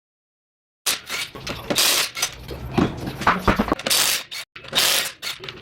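Irregular metallic clanks and rattles of tools and parts being handled during suspension work, starting abruptly about a second in.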